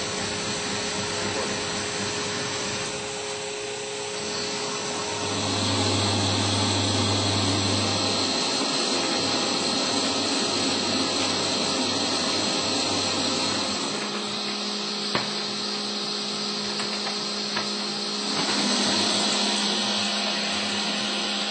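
CNC lathe cutting a metal workpiece: steady machine running with a hiss of coolant spray. Its hum changes several times as the cut goes on.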